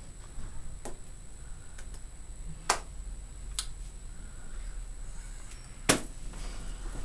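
A few short, sharp clicks and slaps, the loudest about three and six seconds in, over a steady electrical hum.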